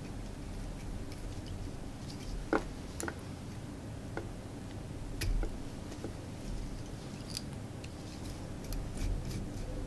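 Faint, scattered small clicks and handling noises from hands working the materials of a fly clamped in a tying vise, over a low steady room hum.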